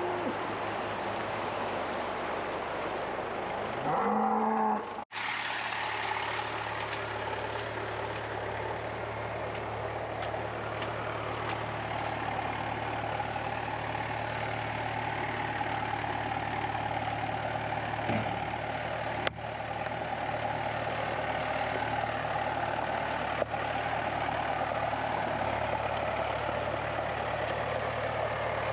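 Farm tractor engine running steadily. About four seconds in, a cow moos once with a rising call.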